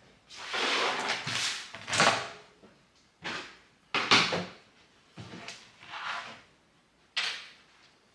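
Things being handled and moved about: a series of about eight short scraping, rustling sounds, each lasting under a second, with gaps between them.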